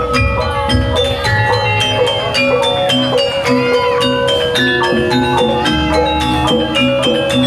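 Loud East Javanese jaranan (kuda lumping) music: a quick, steady rhythm of struck metal-keyed notes with percussion and held tones.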